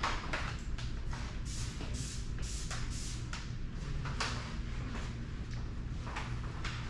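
Irregular soft shuffling and rustling over a steady low hum.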